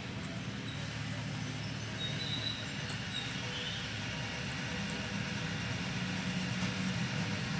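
Steady low background rumble, with a single sharp knock a little under three seconds in.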